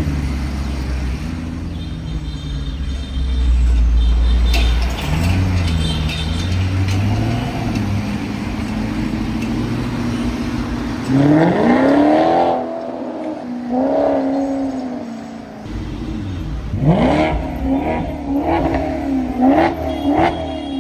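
Maserati engine on its stock exhaust being revved while stationary or rolling slowly: a steady low running sound, then a sharp rev about halfway through, another shortly after, and a quick string of rev blips near the end.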